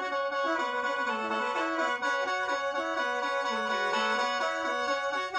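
Khaen, the Lao bamboo free-reed mouth organ, played solo: a quick melody of short notes stepping up and down over steady held drone notes.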